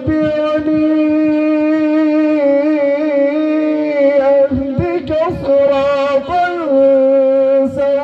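A man's voice reciting the Quran in melodic tilawat style, drawing out long, steady sung notes with a short break in the middle and a step down in pitch near the end.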